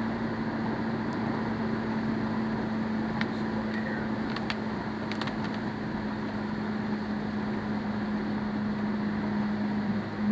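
A car driving steadily on a wet road, heard from inside the cabin: a steady engine hum under a constant hiss of tyres and rain, with a few faint clicks about three to five seconds in.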